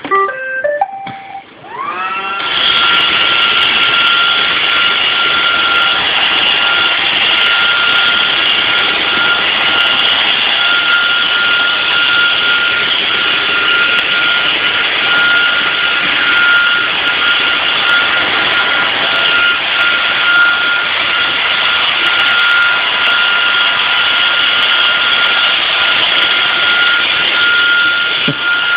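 Vacuum cleaner switched on: its motor spins up with a rising whine about two seconds in, then runs steadily with a constant high whine.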